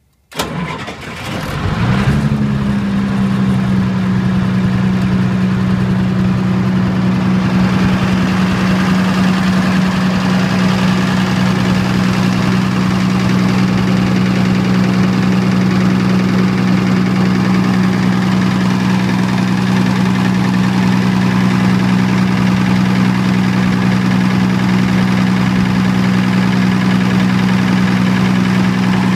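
Diesel generator engine cranking and catching just after the start, coming up to speed within about two seconds, then running at a steady, unchanging speed. It is running on diesel with natural gas added through a dual-fuel conversion.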